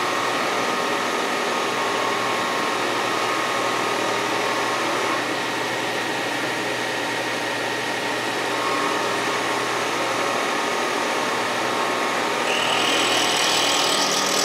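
Milling machine spinning a carbide burr as it cuts a recess into a tool-steel lathe-cutter blank: a steady machine whine with a low hum. A harsher, higher grinding hiss joins near the end as the burr cuts into the steel.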